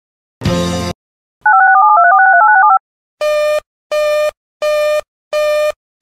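Electronic alert tones from an emergency alert relay stream. A short burst of static-like noise comes first, then a quick run of two-note tones stepping up and down in pitch. After that comes a row of identical buzzy beeps, about three every two seconds, sounding like a busy signal.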